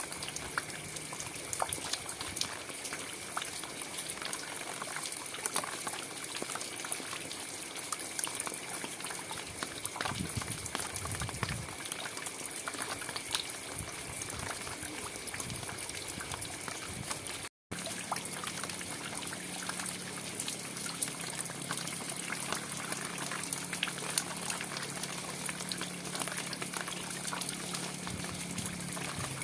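Steady rain falling: an even hiss dotted with the small ticks of individual drops. The sound cuts out for an instant a little past halfway.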